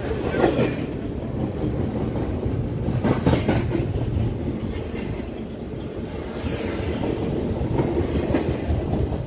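Double-stack intermodal well cars of a BNSF freight train rolling past close by: a steady rumble of steel wheels on the rails, with a few sharper clanks.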